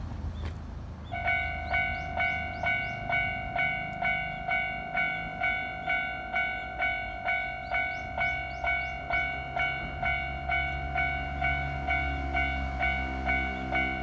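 Japanese level-crossing warning bell on the Nankai Koya Line starting about a second in and ringing steadily at about two strikes a second: the signal that a train is approaching and the barriers are coming down. A low rumble grows beneath it in the second half.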